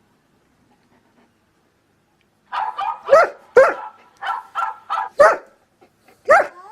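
Dog barking and yipping in a quick series of about nine short calls, starting about two and a half seconds in after a quiet stretch. The last call, near the end, rises into the start of a howl.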